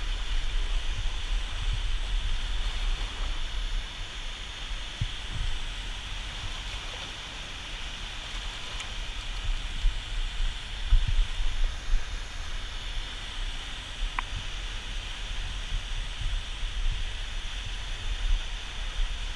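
Steady rush of water pouring through a river lock and dam, with low irregular bumps on the microphone.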